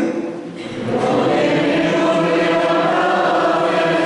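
A choir sings slow, sustained notes, with a short break for breath about half a second in before the voices come back in together.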